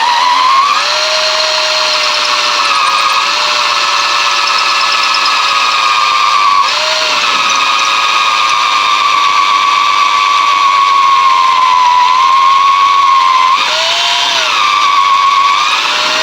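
Cordless drill running steadily with a center-point wood bit boring through an oak chair leg into a support block. The motor whine sags in pitch briefly three times as the bit bites and loads the motor.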